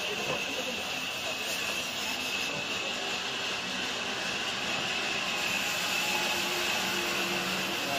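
Sawmill saw running, a continuous even mechanical noise with a high hiss; faint steady low hum tones join about halfway through.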